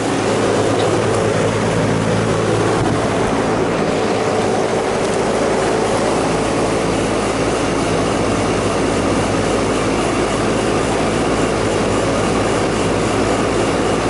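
Row of Ingersoll Rand air-conditioning condenser units running: a steady hum from the compressors and condenser fans.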